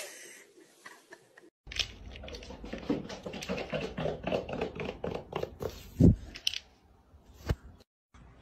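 A short sharp burst at the very start. Then, from about two seconds in, a quick irregular pattering of a small pet's claws and paws on a hardwood floor, with a heavier thump about six seconds in.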